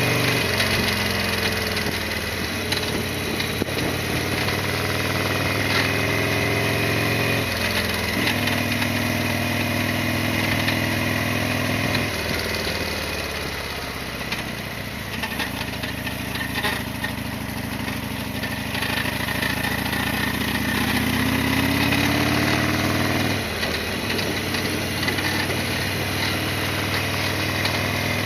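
Harley-Davidson Sportster XL1200R's air-cooled 1200 cc V-twin running under way, its note stepping down in pitch several times as the gears are changed. About halfway through it eases off, then climbs in pitch before another shift near the end.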